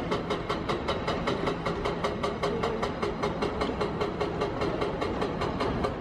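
Train running on the station tracks: an even clacking about five times a second over a steady mechanical hum.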